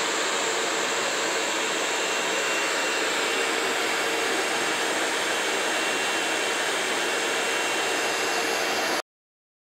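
Handheld TOP GUN heat gun blowing hot air in a steady rush. It cuts off suddenly near the end.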